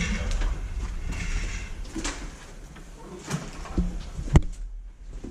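Scattered knocks and crunching steps on debris, with one sharp knock about four seconds in.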